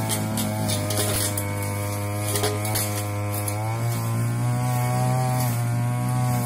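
Backpack brush cutter's small petrol engine running steadily as it trims grass, its pitch stepping up a little about four seconds in. Sharp ticks of grass and debris hitting the cutting head come through during the first three seconds.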